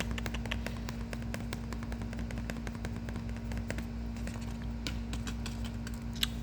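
Light, irregular clicks and taps over a steady low hum.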